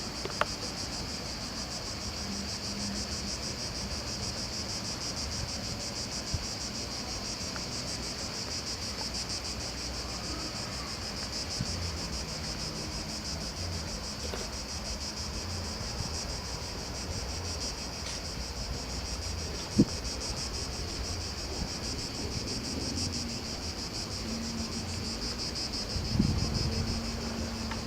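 Steady, high-pitched chorus of insects chirping, over a low rush of wind and sea surf. A sharp click about twenty seconds in and a few low thumps near the end.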